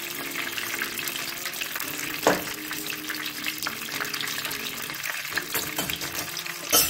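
Hot ghee sizzling and crackling in a pan on a gas stove, just after cashews were fried in it. There is a sharp knock about two seconds in and a louder thump near the end.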